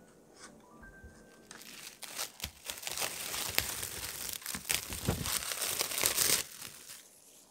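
Plastic wrap crinkling as gloved hands handle it: a dense run of crackles that starts about a second and a half in and stops about a second before the end.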